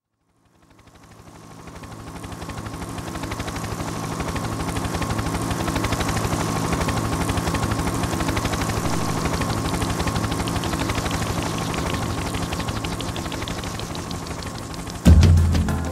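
Soundtrack intro fading in: a rapid, even pulsing over held low notes and a thin steady high tone. The full music comes in sharply near the end.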